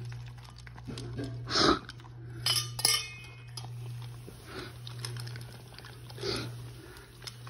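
A puppy eating puppy food from a bowl: the food and bowl clink and rattle in a series of short, sharp clinks, loudest between about one and a half and three seconds in.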